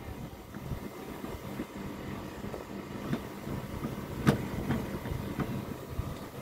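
Outdoor unit of a Sharp AH-PR13 split air conditioner running with a steady hum while it is being topped up with R22 refrigerant for weak cooling. A few light clicks come about three to five seconds in, the sharpest a little after four seconds.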